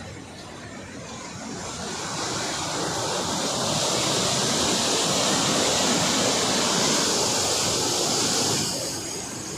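Water rushing through the open gates of the Nizam Sagar dam spillway, a dense steady rush that swells over the first two seconds and eases off near the end.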